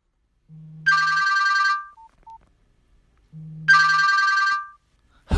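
Telephone ringing twice, each ring a trilling two-tone sound lasting about a second, with a low hum just before it; the rings come a little under three seconds apart.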